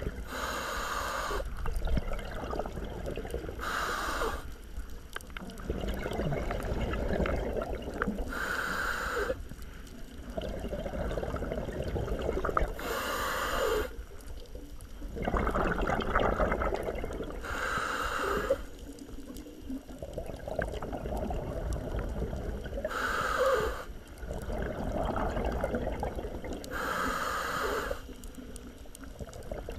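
A scuba diver breathing through a regulator underwater: a short hissing inhale about every four to five seconds, seven in all, each followed by a longer bubbling exhale.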